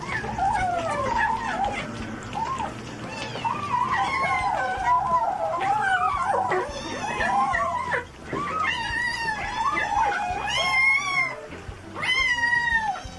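A litter of kittens mewing, many high, wavering cries overlapping one another almost without a break, with louder, longer calls from about nine seconds in.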